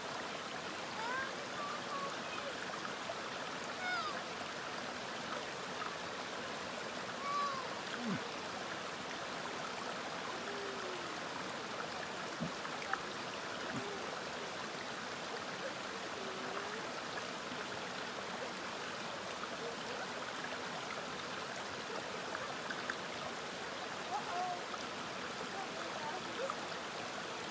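Shallow rocky forest creek running steadily over stones, with a few brief faint calls scattered over the water noise.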